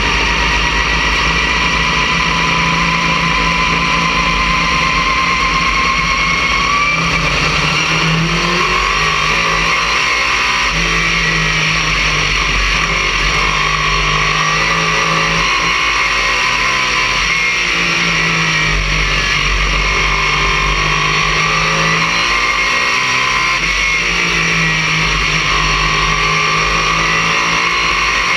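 Race car engine at racing speed heard from inside the car, loud and continuous, its pitch rising and falling every few seconds as the car runs the straights and turns of an oval, with a high whine over wind and road noise.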